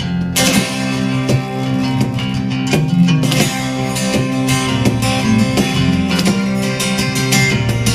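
Acoustic band playing an instrumental passage of a rock song, led by strummed acoustic guitar, with no singing.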